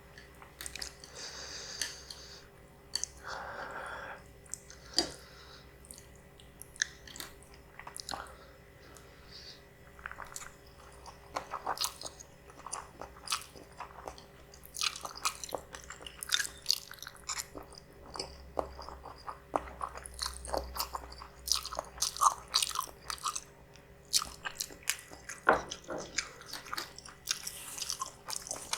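Close-miked mouth sounds of a person eating spicy instant noodles: chewing and biting, with irregular wet clicks and occasional crunches.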